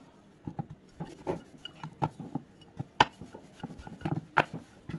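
Steel rolling pin rolling bhatura dough out on a stainless-steel plate: soft irregular knocks and rubbing, with two sharper clacks of the pin on the plate about three and four and a half seconds in.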